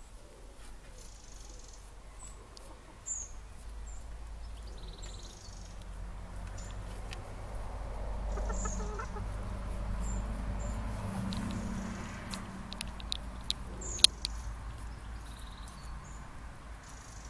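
Domestic hens clucking softly as they peck around their run, with scattered short high chirps and a sharp click about fourteen seconds in.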